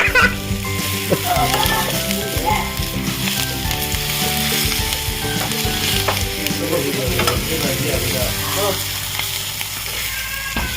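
King chillies sizzling steadily as they fry in hot oil.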